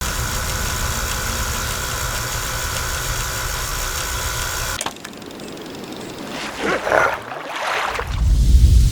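Solidex Model 829 Beta tape rewinder whirring steadily as it rewinds a tape, cutting off abruptly about five seconds in. Then come a few short handling noises and a low rumble near the end.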